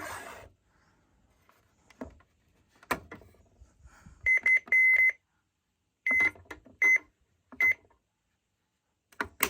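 Short, identical electronic key-press beeps from NOAA weather radio receivers as their buttons are pressed. Two quick beeps and a longer one come about halfway through, then three single beeps about a second apart. Sharp clicks of buttons and handling come before and after.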